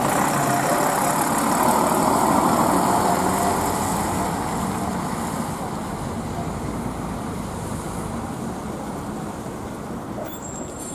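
Articulated Ikarus diesel bus pulling away and driving off; its engine is loudest in the first few seconds, then fades steadily as it moves away.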